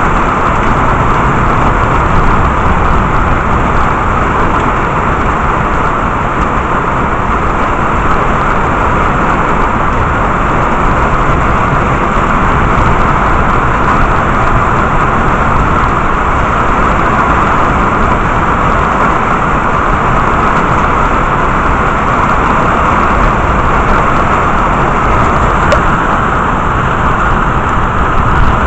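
Heavy rain falling steadily: a loud, even hiss with no breaks.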